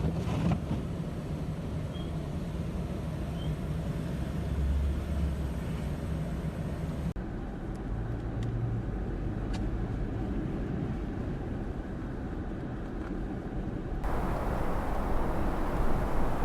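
Steady vehicle and road noise, a low rumble with some hum, in three spliced segments that change abruptly about 7 and 14 seconds in.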